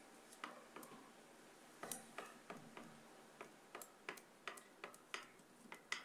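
Small sharp clicks of electric sparks as a fan motor's lead wire is touched again and again to a live mains wire, irregular at about one or two a second and coming faster near the end. Each click is a spark at the contact, the sign of a cut wire shorting in the motor.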